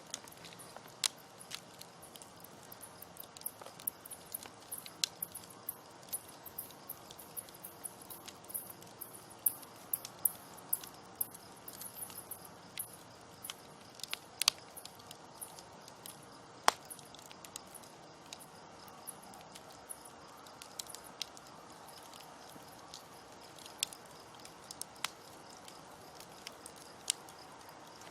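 Campfire of burning wood crackling, with irregular sharp pops and snaps over a soft steady hiss of flames; a few pops stand out louder, one about two-thirds of the way in.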